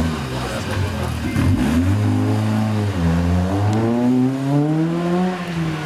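Small hatchback rally car's engine pulling hard out of a hairpin. The revs climb, drop sharply at a gear change about three seconds in, then climb again.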